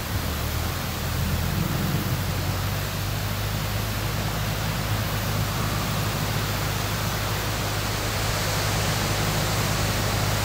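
Tractor diesel engine running steadily, heard at a distance, under a steady rushing hiss.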